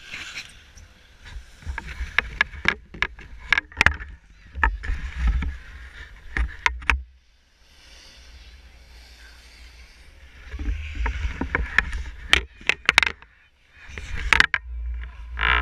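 Wind buffeting a GoPro's microphone in uneven gusts, with many sharp knocks and rustles from the pole-mounted camera being handled by a gloved hand.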